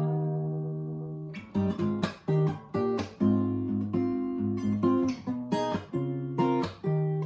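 Acoustic guitar strumming chords: a held chord rings and fades for the first second or so, then rhythmic strummed chords resume for the rest.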